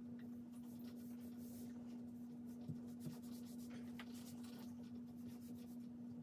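Faint, scratchy strokes of a paintbrush rubbing paint onto a wall, a few soft strokes at a time, over a steady low hum.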